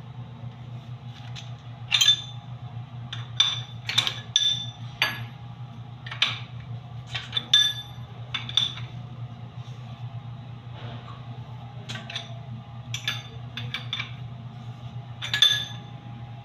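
Irregular sharp metallic clinks, about a dozen, as an angle valve is worked loose by hand at the wall water pipe, over a steady low hum.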